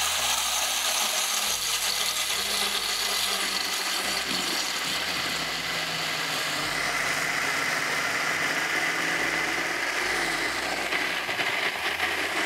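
Countertop blender running steadily at full speed while vegetable oil is streamed in through the lid, emulsifying a mustard vinaigrette.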